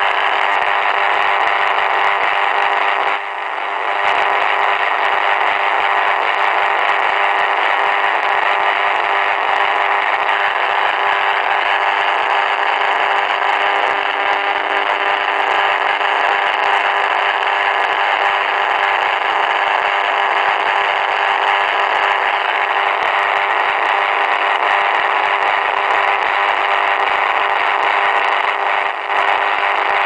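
Portable multiband radio's speaker giving out a loud, steady buzzing interference noise, a dense mix of steady tones with one lower tone standing out, dipping briefly about three seconds in and again near the end. The uploader takes it for radio jamming from a 5G base station.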